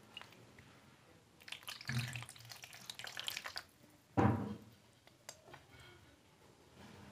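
Thick curry sliding and splattering wetly out of a steel kadai onto a steel plate as a spoon scrapes it out, with one sharp knock about four seconds in.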